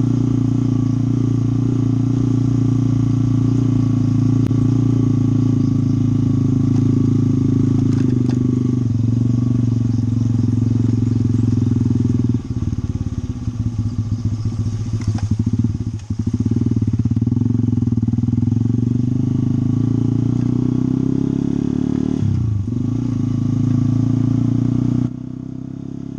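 Motorcycle engine running as the bike rides along a rough, muddy dirt road. About halfway the engine sound drops and goes choppy for a few seconds as the bike eases through a wide puddle, then runs steady again; near the end it turns quieter.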